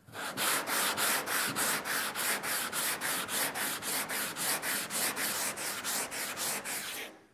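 Fresh sandpaper on a long hand sanding block cutting cured body filler on a car panel, in quick back-and-forth strokes of about four a second. The sharp, scratchy rasp is the sound of new paper cutting rather than gliding. The strokes stop shortly before the end.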